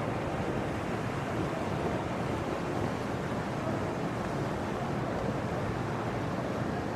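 Steady rushing outdoor noise with no distinct events or voices standing out.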